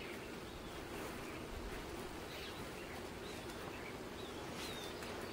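Outdoor ambience: a steady faint background noise with short, high bird chirps every second or so.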